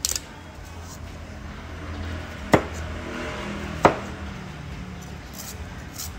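Cleaver shaving the rind off a wedge of pumpkin on a wooden cutting board: two sharp knocks of the blade striking the board, about two and a half and four seconds in, with the blade scraping through the rind between them.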